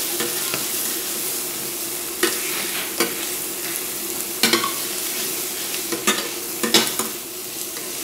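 Garlic and chopped ingredients sizzling as they fry in a stainless steel pan, stirred with a metal spatula that scrapes and knocks against the pan several times.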